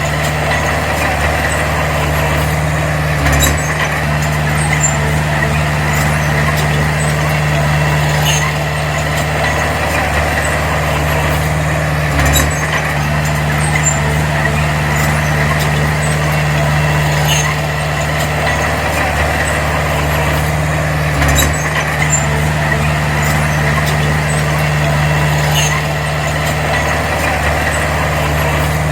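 Bulldozer's diesel engine running steadily under work, with a dull thump about every nine seconds and scattered light metallic clicks.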